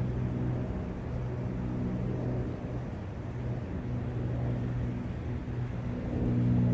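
A low, steady hum from a distant engine that swells and fades, loudest near the end, over a steady hiss.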